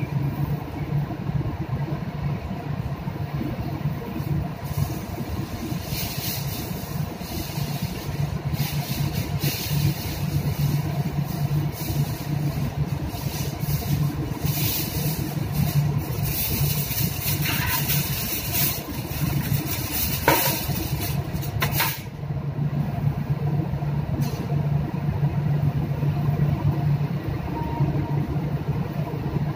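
Steady low drone of the ship's machinery, with a crackling sizzle from meat grilling on the galley griddle that is strongest through the middle and stops abruptly about three-quarters of the way through.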